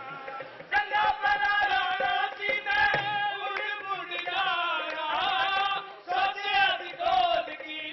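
Qawwali: male voices singing held, bending notes over sharp percussive beats.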